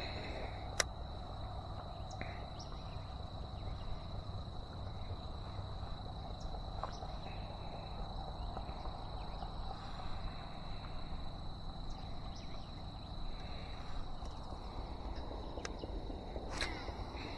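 An insect, cricket-like, trilling on one steady high note, over the low rumble of nearby highway traffic, with a few sharp clicks.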